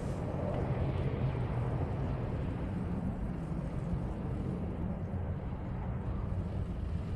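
Distant steady rumble of a Mitsubishi CRJ-900's twin turbofan engines as it lands, mixed with gusty wind on the microphone.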